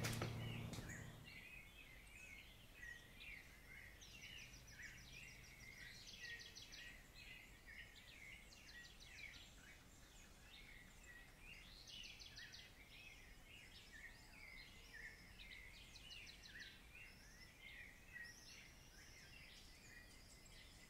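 Faint birdsong from several birds: repeated chirps and rapid trills throughout, over a low hiss. A short knock at the very start.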